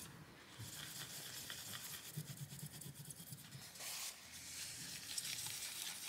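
Tissue paper rubbing over a graphics card's GPU die in faint, uneven wiping strokes, cleaning off old thermal paste, with a slightly louder stroke about four seconds in.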